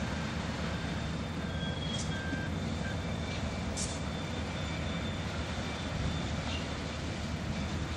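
Diesel locomotive running at low throttle as it rolls slowly past, a steady low rumble with a few brief high squeals.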